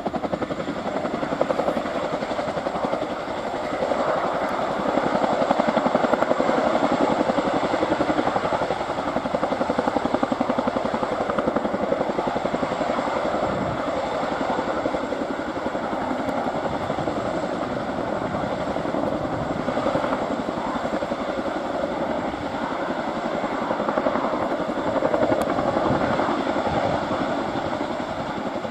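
Boeing CH-47F Chinook's twin turboshaft engines and tandem rotors running at lift-off power as it rises off the ground and hovers low, with a steady, rapid beat of the rotor blades. It swells louder a few seconds in and again near the end.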